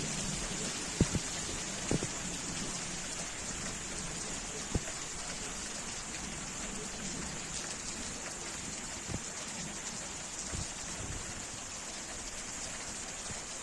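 Heavy rain pouring down in a steady hiss. A few sharp taps stand out about one, two and five seconds in.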